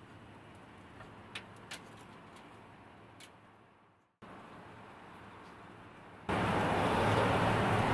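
Water vending machine dispensing: a loud, even rush of water into a jug that starts abruptly about six seconds in and stops abruptly two seconds later. Before it, low steady background noise with a few light clicks.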